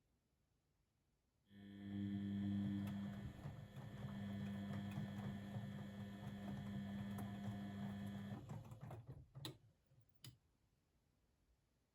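Blomberg WAF 7442 SL washing machine running a motor in mid-programme: a steady hum starts about a second and a half in, runs for about seven seconds and stops, followed by two sharp clicks.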